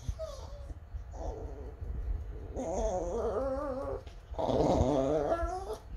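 Small white dog making wavering whining howls, a woo-woo sound, while its ears are being cleaned with a cotton swab: a short call, then two long drawn-out ones from about the middle on.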